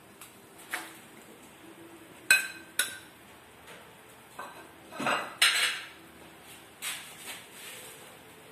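Kitchenware clinking against a wok as bell pepper strips are added: two sharp clinks about two seconds in, a louder clatter in the middle and a smaller knock near the end.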